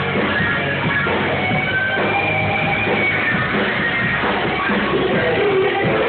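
Live rock band playing, with electric guitar, recorded loud and dull with no treble.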